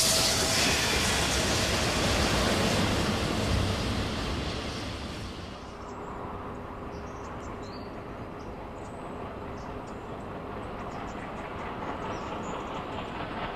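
Coal-fired steam locomotive 5910 passing close by, steam hissing over the rumble of the engine and tender, the hiss fading over the first few seconds. About six seconds in it drops to a quieter, steady distant train rumble.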